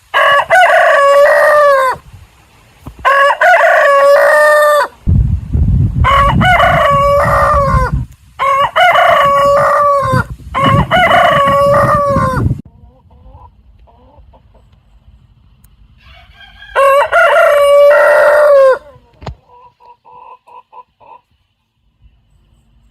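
Roosters crowing: six long cock-a-doodle-doo crows of about two seconds each, five in quick succession and a sixth after a pause, with fainter short repeated calls in the gaps.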